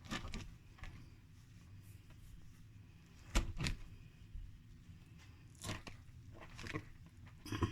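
Fruit being peeled and cut by hand: a few scattered soft tearing and knocking sounds, the loudest a quick pair a little past three seconds in.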